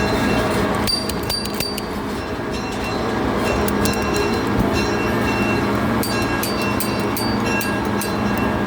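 Passenger train riding along the track, a steady rumble with sharp clicks and rattles about a second in and again near the end.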